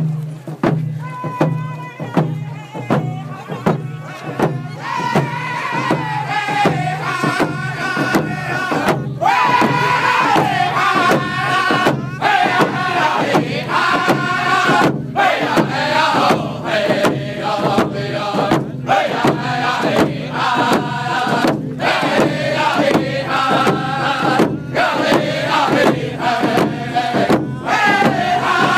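Handheld First Nations frame drums beaten in a steady, even beat, with a group singing a hand-drum song over them in phrases that start high and fall. The singing grows fuller a few seconds in as more voices join.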